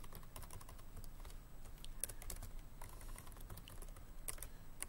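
Typing on a computer keyboard: quiet, irregular keystroke clicks, some in quick runs.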